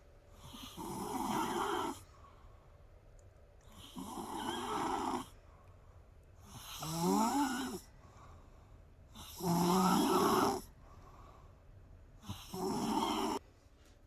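A sleeping woman snoring: five snores, each a second or so long, one about every two and a half to three seconds, with quiet gaps between them. The middle snore slides up in pitch.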